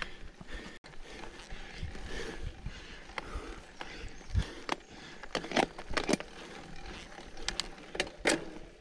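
Mountain bike being ridden over rough trail: a steady rolling rumble of tyres with a string of sharp clicks and knocks from the bike rattling over bumps, coming thickest in the second half.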